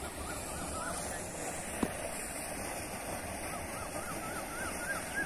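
Steady rush of water gushing out of an irrigation pipeline outlet fed from a pond, under strong pressure. Over it a bird calls short repeated notes, a few near the start and a longer run climbing slightly in pitch in the second half. A single sharp click comes a little under two seconds in.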